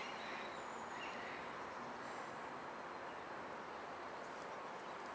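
Steady outdoor background noise: an even hiss with no distinct events, and a few faint high chirps in the first second or so.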